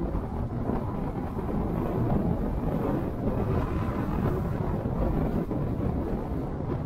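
Steady low rumble of a car driving: road and engine noise, with no clear tones or sudden sounds.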